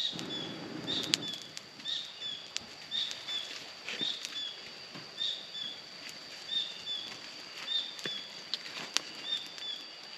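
A newly lit twig fire being blown on hard for about the first second, then crackling with scattered sharp snaps. Over it, a short high call repeats about every two-thirds of a second against a steady high whine.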